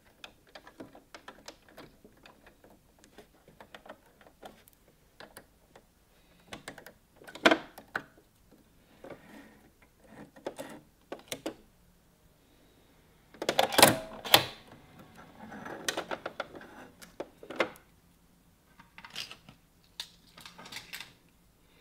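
Small clicks, taps and rattles of a domestic sewing machine's needle being changed by hand, for a stretch 90 needle. Louder clatters come about 7 and 14 seconds in.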